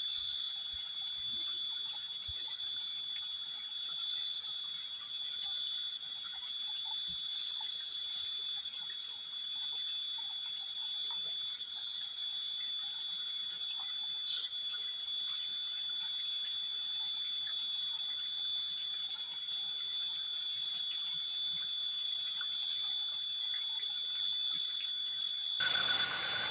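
Cicadas singing: a steady, shrill, high-pitched drone that cuts off suddenly near the end.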